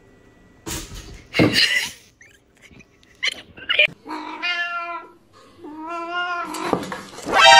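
A cat yowling in long, drawn-out calls with something held in its mouth: two calls of about a second each, then a third, louder one starting near the end. Rustling and knocking come before the calls.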